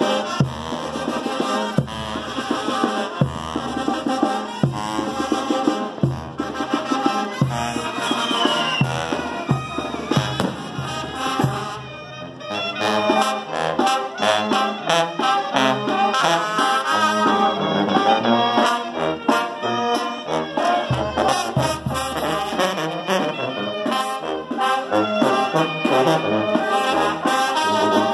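Brass band playing: sousaphone, trombones and trumpets over a regular bass-drum beat, with a brief lull about twelve seconds in before the band plays on.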